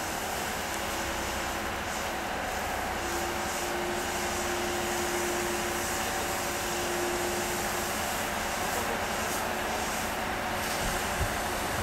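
Fire engine's pump running steadily while fire hoses spray water: a constant rushing noise with a faint steady hum that fades out about two-thirds of the way through.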